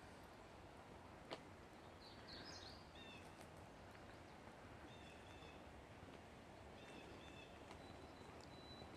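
Near silence of a quiet forest, with faint short high chirping calls from a small animal every couple of seconds and one soft click about a second in.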